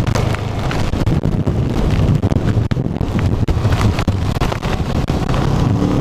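Heavy wind buffeting the microphone of a moving motorcycle, a loud steady rumble, with hailstones striking in many sharp ticks.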